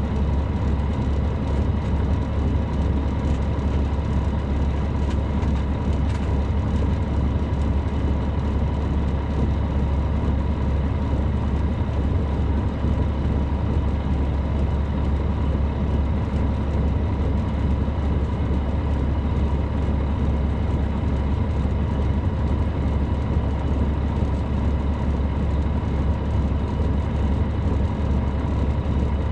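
Inside a 2007 MCI D4500CL coach, its Caterpillar C13 ACERT diesel engine running steadily: a low, even drone with a faint steady whine above it and no gear changes or rev changes.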